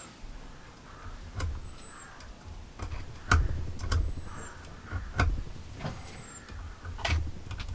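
Scattered clicks and knocks of a chainsaw's sprocket and clutch drum being handled and turned, some with a low thump. A faint short high chirp recurs about every two seconds.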